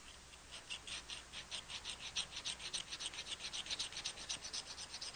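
Dry knife-edge sharpening stone rubbed back and forth on an SKS rifle's sear at about five quick, even strokes a second, starting about half a second in. It is stoning metal off to change the sear's engagement angle in a trigger job.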